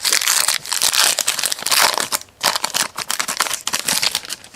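Crinkling of a plastic trading-card pack wrapper being handled, in uneven rustling bursts with a short lull about halfway.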